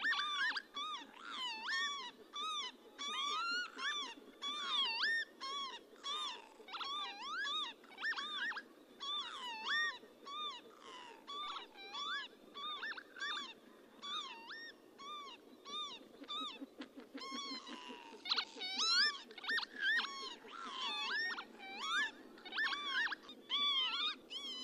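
Several northern lapwings calling over and over: short, slurred 'pee-wit' calls that glide up and then down in pitch, many of them overlapping.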